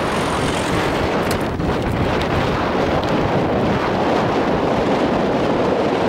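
Strong wind buffeting the camera's microphone: a steady, loud rushing rumble with no break.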